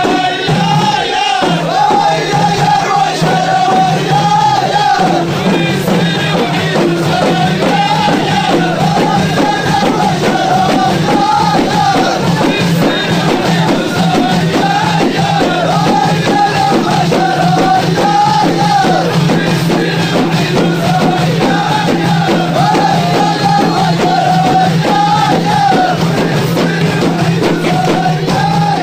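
Ahidous: a line of men singing together in a wavering, unison chant while beating large bendir frame drums in a steady, continuous rhythm.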